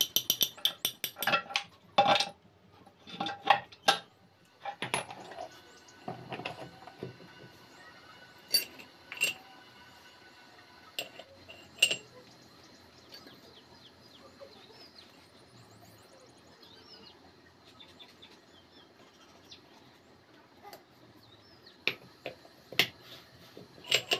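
Steel gears and synchro parts of a Tata 407 GB-20 gearbox main shaft clinking and clanking against each other and the shaft as they are handled and slid on by hand. A quick run of clinks over the first few seconds, then scattered single clinks, a quiet stretch, and a few more clinks near the end.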